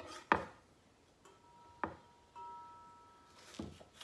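Kitchen knife chopping a green bell pepper on a wobbly wooden cutting board: a few sharp knocks, the first the loudest, with a faint ringing tone in the gaps between them.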